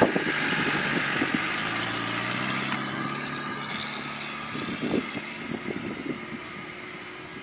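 A motor vehicle's engine running and gradually fading, with a few low knocks about five seconds in.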